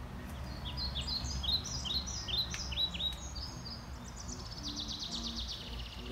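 A songbird singing: a string of short, high, downward-sliding chirps, then a fast trill about four seconds in, over a low steady background rumble.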